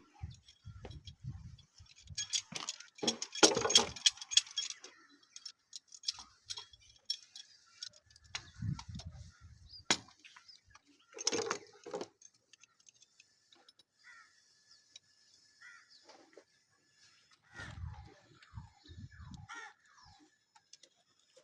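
Intermittent metallic clinks and rattles of pipe fittings and tools being handled. The clattering is densest a couple of seconds in and again about halfway through, with a few low rumbling bumps in between.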